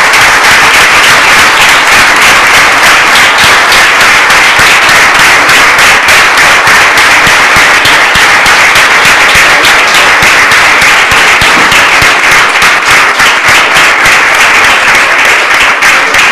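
Sustained applause from a room full of people, many hands clapping at a steady, even level.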